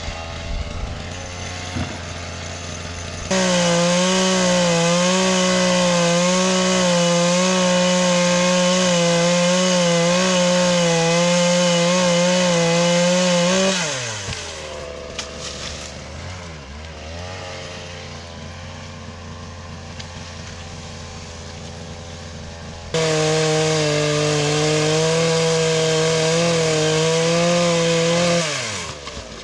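Chainsaw idling, then opened to full throttle and held there for about ten seconds while cutting wood, its pitch wavering slightly under load, before falling back to idle. About nine seconds later a second full-throttle cut of about five seconds follows, and the engine drops back to idle near the end.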